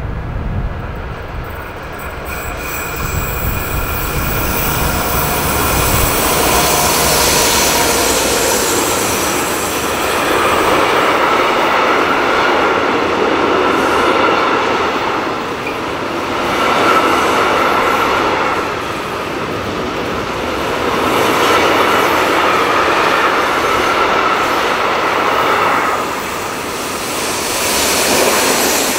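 Freight train of tank wagons passing close by, the deep rumble of the Ludmilla-class diesel locomotives in the first few seconds giving way to the rolling noise of the wagons. The wheels keep up a steady high squeal, the sound swelling and easing every few seconds as the wagons go by, and another Ludmilla locomotive passes at the tail near the end.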